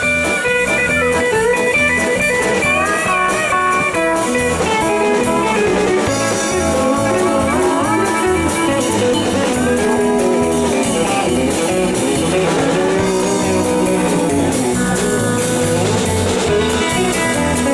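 Live band playing an instrumental break: an electric lead guitar solo with bending notes over a steady bass and drum beat.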